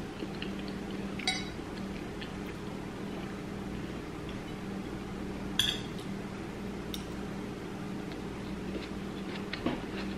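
Fork and spoon clinking and scraping against a plate while eating: a few separate clinks, the sharpest about five and a half seconds in, over a steady low hum.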